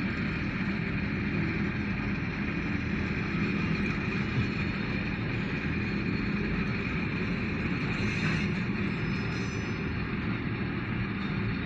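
Freight train of grain hopper cars rolling past, a steady rumble of wheels on rail with a constant low hum.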